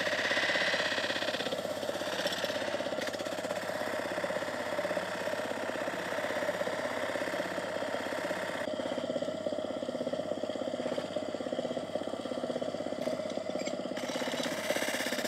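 Electric motor spinning an abrasive wheel, with small steel scale parts pressed against it: a steady hum under a hissing grind. The grinding hiss eases about nine seconds in and picks up again near the end.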